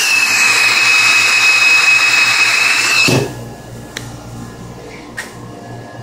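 Air rushing with a steady high whistle into the suction of a 1925 Spencer turbine central vacuum system, running with full suction. It cuts off sharply about three seconds in, leaving the lower steady hum of the running turbine, with a couple of faint clicks.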